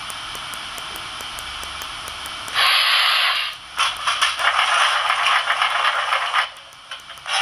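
Märklin BR 01 model steam locomotive's sound decoder playing steam hiss through its small loudspeaker while the engine stands: a steady hiss, then from about two and a half seconds in a much louder burst of steam, a brief dip, and a rougher, rapidly pulsing hiss that drops away a second before the end, coming back at the very end.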